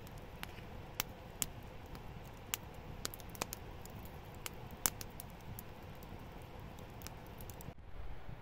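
Wood campfire crackling, with sharp, irregular pops a few times a second over a low steady rumble. The crackling cuts off abruptly about a second before the end.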